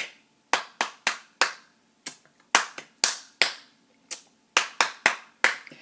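One person clapping her hands, about sixteen sharp claps in an uneven rhythm, some coming in quick runs of two to four.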